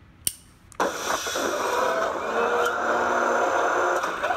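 Aliens M-41A pulse rifle sound-font effect played through a BlasterCore prop-blaster board's small speaker: a sharp click, then under a second later a loud, sustained, noisy mechanical sound with gliding tones that stops just before the end.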